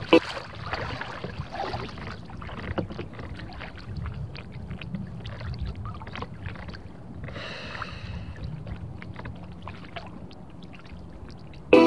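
Water lapping and splashing against a kayak hull, with drips and splashes from paddle strokes and a sharp knock just at the start.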